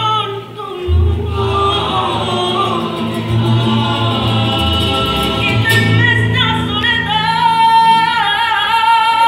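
Rondalla performing: voices singing together over strummed acoustic guitars, ending on a long held note with vibrato in the last few seconds.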